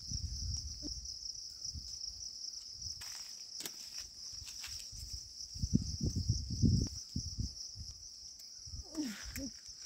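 Steady high-pitched insect chorus, with low knocks and rumbles near the start and again about six seconds in.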